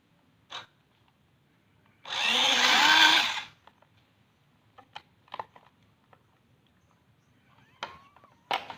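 A handheld power tool run in one short burst of about a second and a half, starting about two seconds in, with scattered light knocks and clicks before and after.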